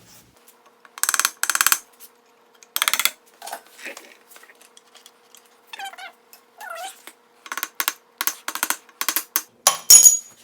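Repeated banging on the oil pump of a VW Type 1 1600 engine to knock it loose from the case: sharp strikes in small groups, then a quicker run of blows near the end, the loudest just before it stops. Two short squeaky glides come in about six seconds in.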